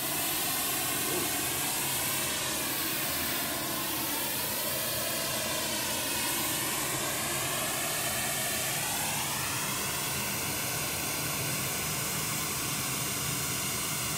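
Pink noise played loud through a PA system's subs and tops as a measurement signal for checking time alignment and system coherence. It is a steady, even hiss that starts abruptly, with a slow phasing swirl from the large room's reflections.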